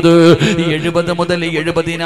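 A man preaching into a microphone in a drawn-out, sing-song delivery, starting with a loud held vowel, over a steady low drone.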